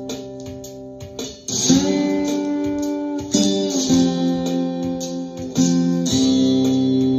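Ovation Koa acoustic-electric guitar in open C tuning played with a ceramic slide: chords struck and held, the slide gliding up into a new chord about one and a half seconds in and again near six seconds, with further chord changes in between. A steady drum-machine beat ticks along underneath.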